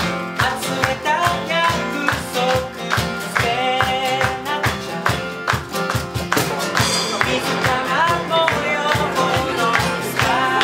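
A song played on strummed acoustic guitars in a steady rhythm, with a voice singing over them.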